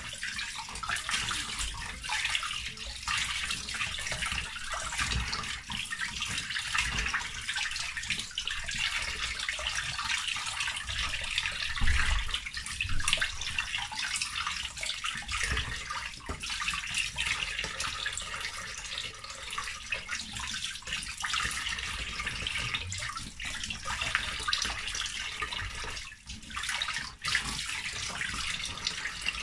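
Kitchen tap running into a stainless steel sink, the stream splashing over raw chicken pieces being rinsed by hand, with a dull knock near the middle and a brief lull in the splashing near the end.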